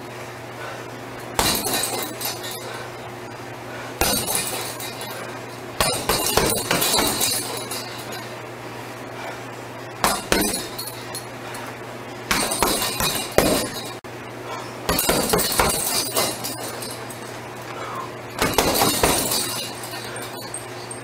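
Gloved punches landing on a hanging heavy punch bag in flurries of about one to two seconds, each flurry set off with the metal chain rattling and clinking, with short pauses between flurries. A steady low hum runs underneath.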